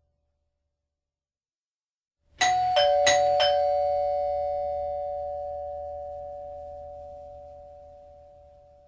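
Two-tone doorbell chime struck twice, ding-dong ding-dong, about two seconds in, the high and low notes ringing on and slowly fading away.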